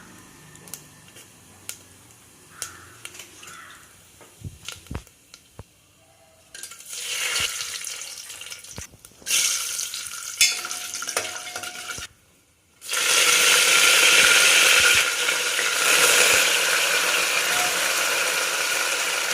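Food sizzling in hot oil in a pan, after a few seconds of light clicks and taps of utensils. The sizzle comes in unevenly about six seconds in, breaks off briefly, then turns loud and steady from about two-thirds of the way through.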